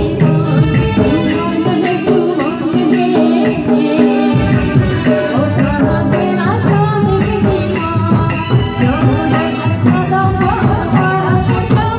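Live Jhumar folk music: hand-beaten two-headed barrel drums and a keyboard melody over a steady, fast jingling rattle beat.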